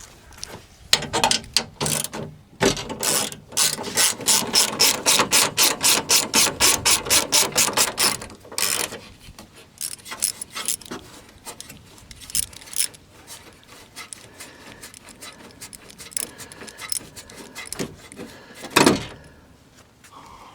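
Socket ratchet clicking as a bolt is backed out of the window regulator, a fast even run of clicks about five a second for several seconds, then slower scattered clicks. A single loud knock near the end.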